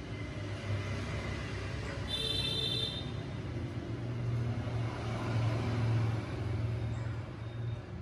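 Steady low background rumble, with a brief high tone with overtones about two seconds in, lasting under a second.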